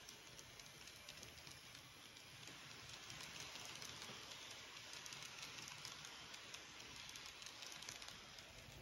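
Faint rolling hiss of Kato N scale bi-level passenger coaches running along the track, with scattered light clicks from the wheels; it grows a little louder about three seconds in.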